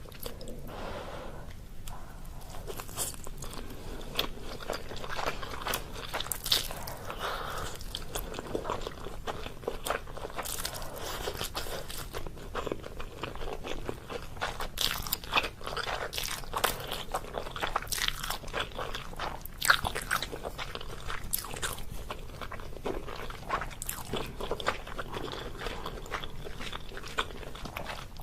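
Close-miked eating of Korean instant noodles: steady chewing and biting with many sharp, irregular mouth clicks.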